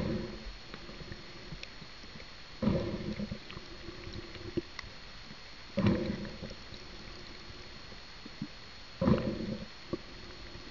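Four gurgling bursts of bubbles underwater, about three seconds apart, each fading over about a second, over a steady hiss with a faint high tone.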